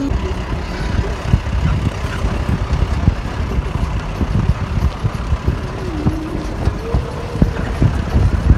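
Mahindra Bolero Camper pickup driving over a rough, rocky dirt road: a heavy steady rumble from the engine and tyres, broken by frequent knocks and jolts as the vehicle bounces on stones.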